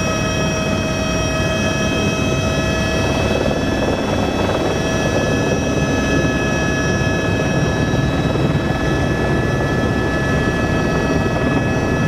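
Light helicopter's engine and rotor noise heard from inside the cockpit in flight: a steady, loud rumble with several constant high whining tones over it.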